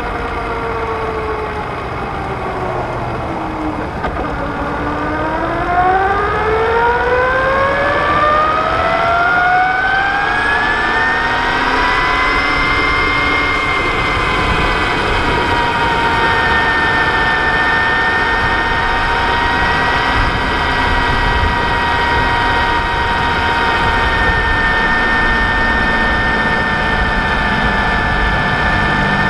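Whine of the 2013 Brammo Empulse R's electric drive motor on the move: its pitch falls as the bike slows for about four seconds, rises steadily as it accelerates, then holds a steady high pitch at cruising speed. A steady rush of wind and road noise runs underneath.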